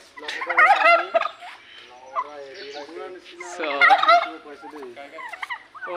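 Domestic turkeys gobbling: two loud warbling gobbles, one about half a second in and another about three and a half seconds in, with quieter gobbling between.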